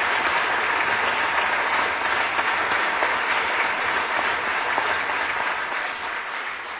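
Audience applauding in a steady, dense patter that begins to die down gradually near the end.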